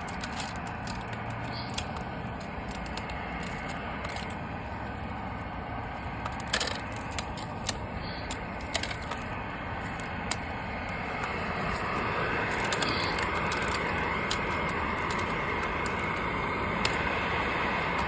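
Packed snow and ice being crunched and broken out of the ends of PVC furnace vent pipes by hand, with scattered sharp cracks and crackles. A steady rushing noise underneath grows louder about two-thirds of the way through.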